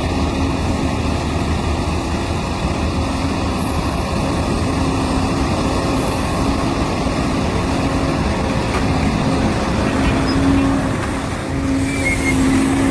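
Heavy diesel mining machinery at a truck-loading face, running steadily with a constant engine hum.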